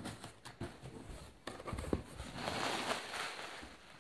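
Bubble wrap rustling and crinkling as it is handled and pulled out of a cardboard box, with a few small knocks and clicks at first and a longer, louder stretch of rustling from about halfway through that fades near the end.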